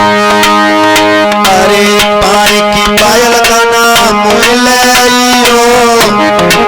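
Instrumental interlude of a Hindi devotional song (bhajan): a steady hand-drum beat under held notes, with a wavering lead melody coming in about a second and a half in.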